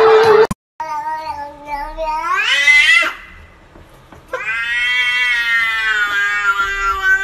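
Cat yowling: two long drawn-out calls, the first rising in pitch and breaking off after about two seconds, the second coming after a short pause and held fairly steady for about three seconds.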